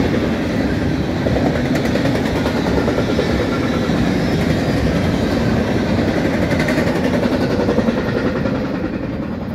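Double-stack intermodal freight train passing, its steel wheels running on the rails in a steady noise. The noise begins to fade near the end as the last cars go by.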